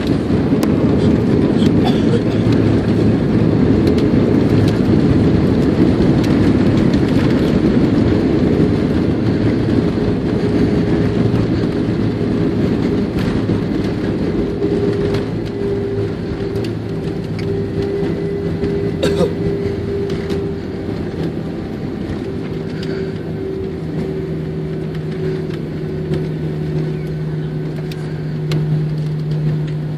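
Cabin noise of an Airbus A320-232 with its IAE V2500 engines on the landing roll. A loud rushing roar eases off over the first half, leaving a steadier engine hum with two clear tones as the jet slows. There is one sharp click about two-thirds of the way through.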